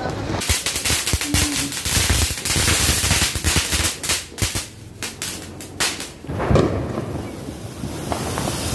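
Firecrackers going off in a quick, irregular series of sharp bangs and crackles, with one loud bang about six and a half seconds in. Near the end a fountain firecracker gives a steady hiss as it sprays sparks.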